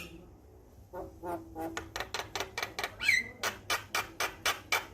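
Male Javan myna singing: after a short pause, a rapid series of sharp clicking notes with a brief whistled glide near the middle.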